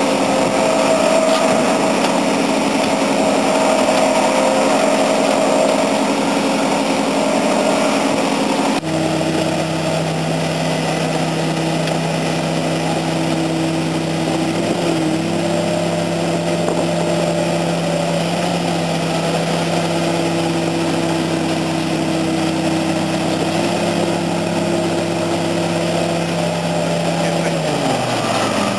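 Heavy diesel engines of earthmoving machines, a backhoe loader and a crawler dozer, running steadily during recovery of the stuck dozer. The engine note changes abruptly about nine seconds in, and near the end an engine's pitch drops as it slows down.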